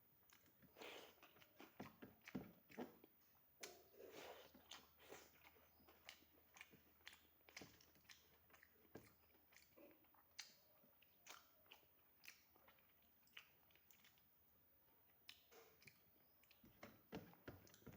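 A person chewing and eating mouthfuls of rice and vegetable dishes close to the microphone: quiet, irregular wet mouth clicks and smacks with an occasional light crunch.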